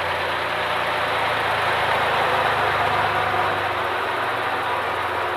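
Twin six-cylinder Gardner 6L3B marine diesels idling slowly, about 300 RPM, a steady engine-room din that swells slightly a couple of seconds in.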